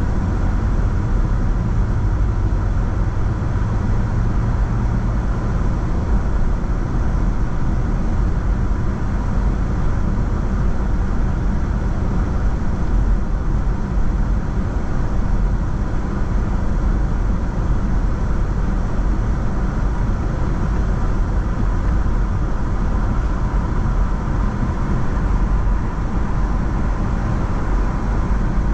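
Car driving at a steady pace: continuous low road and engine rumble with no breaks or changes.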